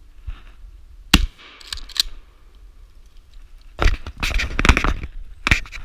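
A shotgun shot fired up into the pines, a single sharp crack about a second in. A stretch of crackling and rustling follows in the middle, and a second sharp crack comes near the end.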